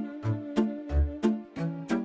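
Background music with a steady beat. Low thumps alternate with sharp hits about three times a second, under a held melody.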